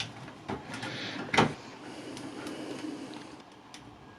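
Handling noise of a PC power supply and its cables being pushed into the case: a few sharp knocks, the loudest about a second and a half in, with rubbing and scraping that fades toward the end.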